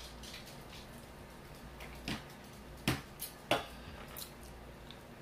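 Eating sounds: soft, wet mouth clicks of chewing and smacking, with three sharper clicks between about two and three and a half seconds in.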